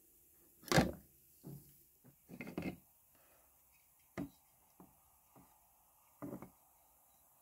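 A spring clamp and a corroded steel scabbard knocking and clattering against each other and a plastic tub as the scabbard is freed from the clamp and lifted out. The loudest knock comes about a second in, followed by a quick cluster and a few lighter taps.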